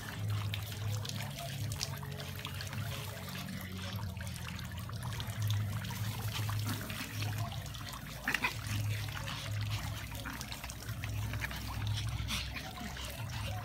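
Brussels Griffon puppies play-fighting on grass: scuffling and a couple of brief small-dog cries, over a steady trickling, crackling background.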